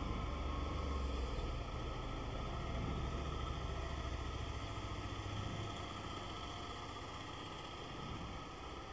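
A steady low motor rumble in the background, which eases off a little past halfway through.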